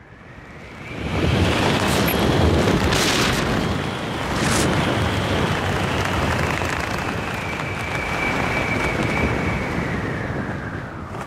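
Wind rushing over the camera's microphone as a skydiver flies an open canopy down on final approach toward the landing field. The rush swells about a second in, carries a faint high whistle, and eases off near the end.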